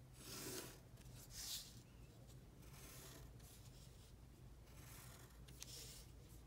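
Faint scratching of a pencil drawn along the edge of a ruler on paper: several short strokes, the loudest about a second and a half in.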